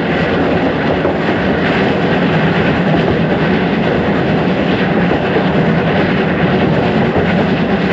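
JNR Class C62 steam locomotive running at speed under steam: a loud, steady mix of exhaust and wheels on the rails.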